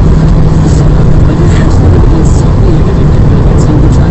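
In-cabin drone of a Fiat Stilo Abarth's five-cylinder engine and road noise at a steady, constant speed, the engine holding one steady tone. Recorded through a mobile phone's microphone, so it is loud and muddy.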